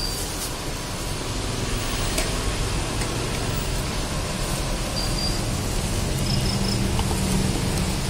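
Steady rushing roadside noise with a low rumble, and a few faint short high-pitched tones about five and six and a half seconds in.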